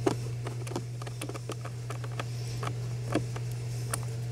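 Scattered light clicks and taps of a screwdriver and screws as the replacement blower motor is fastened up under the dashboard, over a steady low hum.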